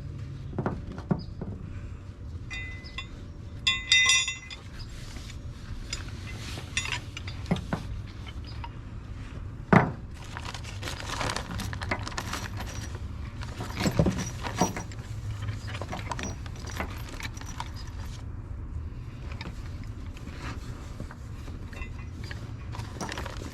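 Metal hand tools and bolts clinking and rattling, with a ringing metallic jangle about three to four seconds in and a few sharp knocks, over a steady low hum.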